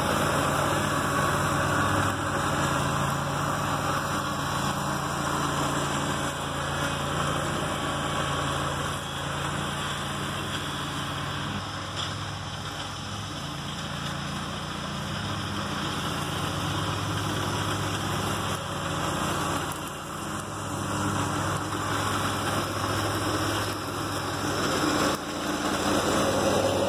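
Scag Turf Tiger zero-turn mower with a 22-horsepower liquid-cooled Kawasaki engine running steadily while mowing. It grows quieter as it moves away and loud again as it comes back near the end.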